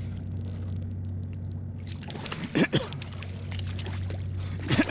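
A hooked trout splashing at the surface beside a kayak, twice: about two and a half seconds in and again near the end. A steady low engine hum runs underneath.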